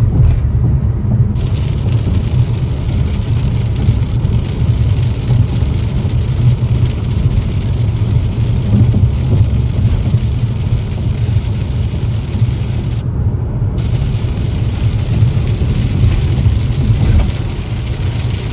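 A vehicle's steady low rumble of engine and road noise while it is being driven.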